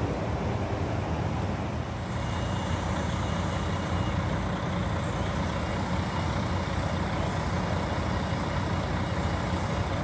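Heavy diesel engine running steadily with a low, even rumble.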